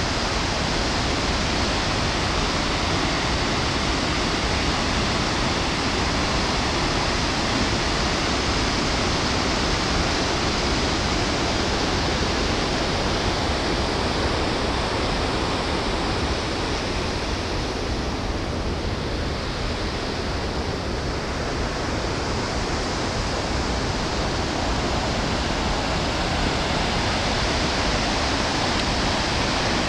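Steady rushing roar of a large waterfall and the rapids below it, the water pouring over icy rock ledges.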